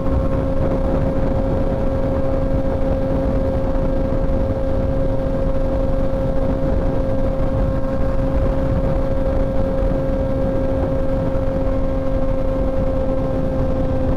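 Suzuki Hayabusa's inline-four engine holding a steady note at cruising speed, with heavy wind rush over the rider's microphone.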